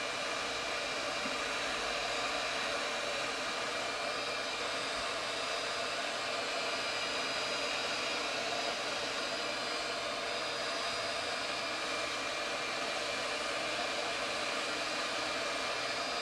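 Variable-temperature heat gun blowing steadily, a constant rushing air noise with a faint high whine from its fan.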